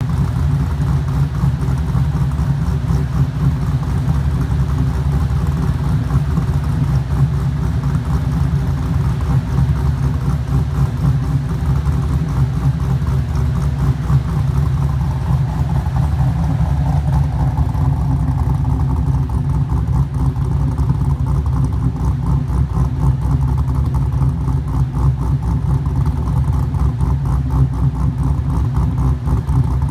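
2004 Pontiac GTO's LS1 V8 idling with the choppy, uneven lope of an aggressive custom-ground camshaft, exhaling through long-tube headers.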